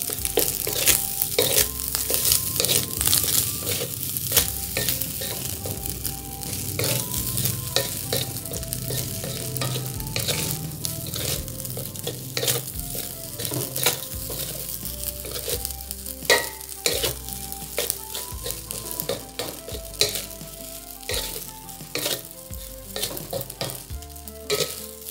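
Wooden spatula stirring and scraping fried rice around a stainless steel wok, with frequent sharp scrapes and knocks against the pan. The goat-meat fried rice sizzles steadily in butter over the gas flame.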